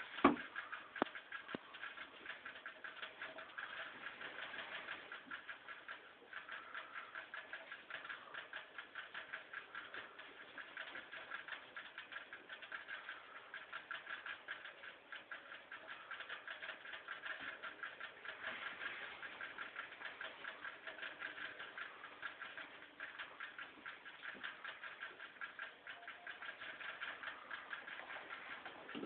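A rabbit drinking water, licking in a rapid, even run of small ticks that keeps up without a break.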